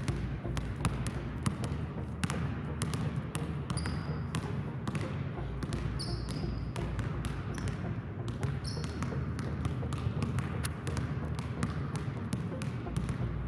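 Two basketballs dribbled on a hardwood gym floor, their bounces overlapping in a quick, uneven run of knocks, with a few short high squeaks among them.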